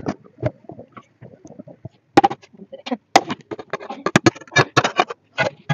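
A ladle stirring thick kidney-bean curry in a metal pan, knocking and scraping against the pan in a quick series of sharp clinks that come thickest in the second half.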